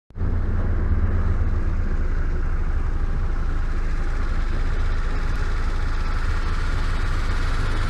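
Volkswagen Passat B5+ engine running steadily with a low rumble.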